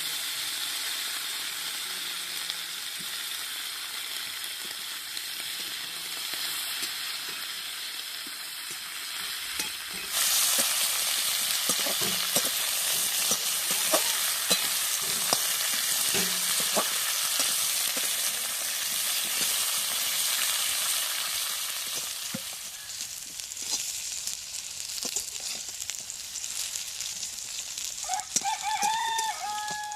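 Food frying in a pan of hot oil: a steady sizzle that suddenly gets louder about ten seconds in, with the taps and scrapes of stirring. Near the end a chicken calls.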